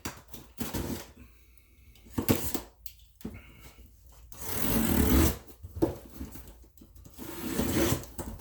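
A cardboard box of paintball gear being opened by hand: a few short knocks and clicks of handling, then two longer stretches of scraping and rustling packaging, about halfway through and near the end.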